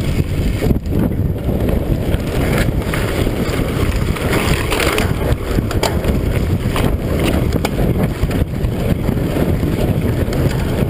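Wind rushing over the camera microphone on a mountain bike moving at speed, with the low rumble of tyres on a gravel road and scattered knocks and rattles from bumps.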